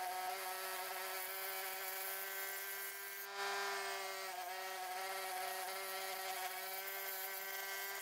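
Wood lathe running with a steady high-pitched whine while a turning tool cuts a spinning birch bowl blank, adding a hiss of cutting that gets louder a little over three seconds in.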